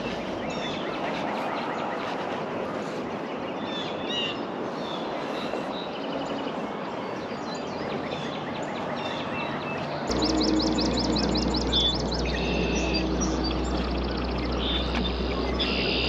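Small birds chirping and singing over a steady background hiss. About ten seconds in, the background changes abruptly to a steady low rumble, and a quick trill of repeated high notes is followed by more calls.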